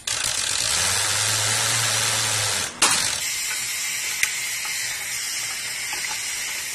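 Metal hardware of a chain hoist and bomb suspension lugs being handled over a steady hiss of air, with a low hum for a couple of seconds and a sharp metallic clank about three seconds in, then lighter clicks.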